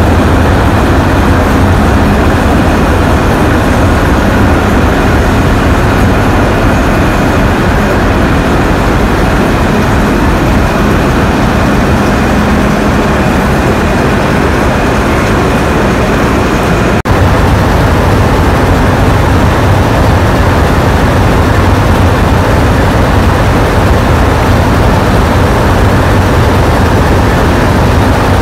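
Steady, loud drone of the diesel engines of the 442 class diesel-electric locomotive 442s1 and the second locomotive coupled to it, running while stopped, with a faint high whine over the low engine sound.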